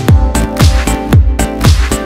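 Background electronic dance music with a steady beat over sustained held chords.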